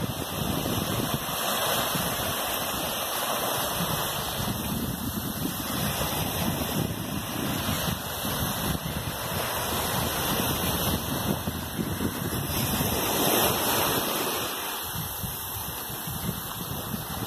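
Small waves washing onto a sandy shore in a steady, swelling and easing wash, with wind buffeting the microphone.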